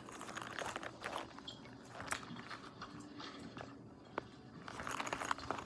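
Faint, irregular clicks, taps and rustling of small stationery items being handled.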